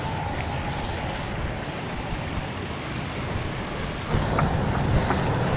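Water rushing steadily over a concrete drainage spillway, with wind buffeting the microphone; the rush grows louder and heavier about four seconds in.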